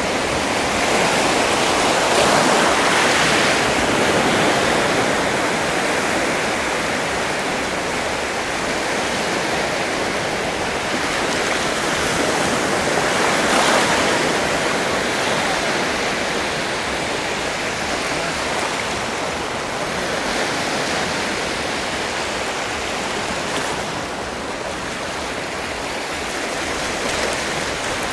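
Sea waves washing onto a shore, a continuous rushing wash of surf that swells slightly about three seconds in and again around the middle.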